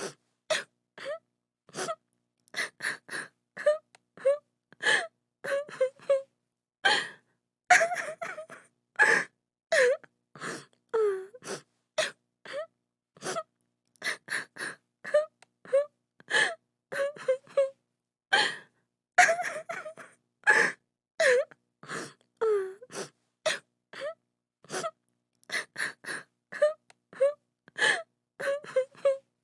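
A woman sobbing: short broken cries and gasping breaths, one to two a second with silent gaps between, some cries falling in pitch.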